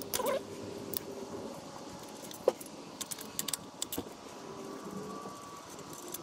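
Scattered metallic clicks and clinks of a hand wrench on bolts as the valve body bolts of a TH400 automatic transmission are undone, with one sharp clink about two and a half seconds in and a quick run of clicks around three seconds.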